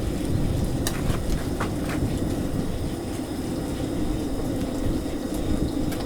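Salmon patties frying in hot oil in a cast iron pan, with a few sharp spattering pops about one to two seconds in over a steady low rumble. The pan is too hot, so the oil is spattering.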